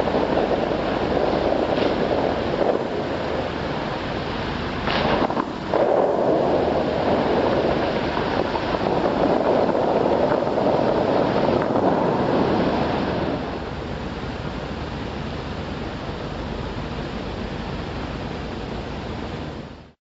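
Dubai Fountain's water jets running and spray falling back onto the lake: a steady rushing like surf, louder at first and settling to a lower, even rush about thirteen seconds in.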